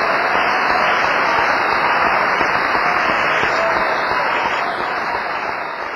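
Large audience applauding after an opera aria, with voices calling out in the crowd; it fades out near the end.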